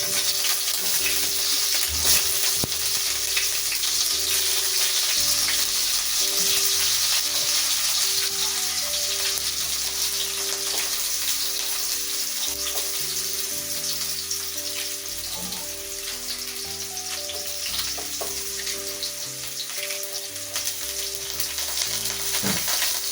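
Hot cooking oil sizzling steadily in a pan on the stove.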